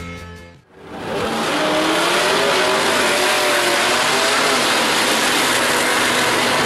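Music fading out, then from about a second in a first-generation Chevrolet Camaro SS drag car doing a burnout: its engine revving high while the rear tires spin and squeal loudly against the track, steady and hissing.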